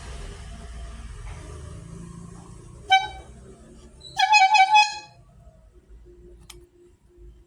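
Cilok street-food vendor's horn tooting: one short toot about three seconds in, then a quick run of about five toots.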